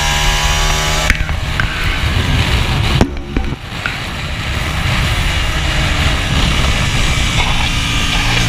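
Hyosung race motorcycle's engine running hard at racing speed, largely buried under heavy wind rush on a chest-mounted camera for most of the clip. There is a short dip about three seconds in, and the engine note comes through clearly again, rising, near the end.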